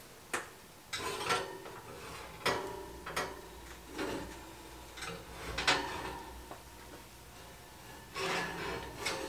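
Cake baking dish being pulled out of the oven: a series of knocks, clinks and scrapes of the dish against the oven's wire rack, some with a brief ringing, and a busier cluster near the end.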